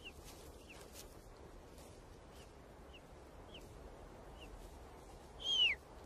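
Golden eagle chicks cheeping in the nest while being fed: short, faint, high peeps that fall in pitch, a little under a second apart, with one longer, louder falling call near the end.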